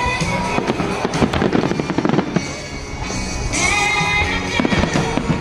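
Fireworks bursting and crackling, many reports in quick succession, over music played along with the show.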